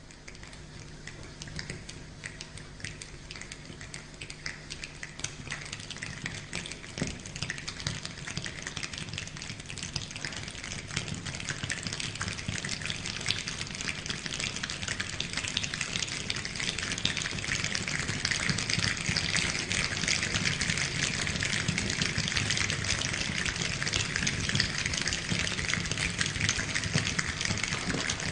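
A Slovenian choir imitating a rainstorm with body percussion, the rubbing, snapping and patting of many hands, building gradually from a faint patter to a dense hiss. It is heard played back over the hall's speakers.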